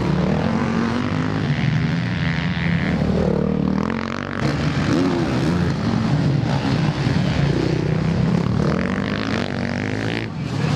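Motocross bike engines revving hard, their pitch rising and falling as the riders open and close the throttle through corners and over jumps, with more than one bike heard at once.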